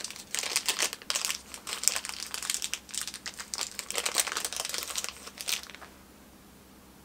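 Crinkling of a mystery pin's packaging being opened by hand: a dense run of small crackles that stops about five and a half seconds in.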